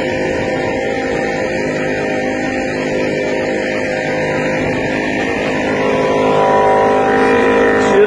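Outboard motor of an inflatable boat running steadily under way at sea, with water and wind noise around it; it grows a little louder about six seconds in.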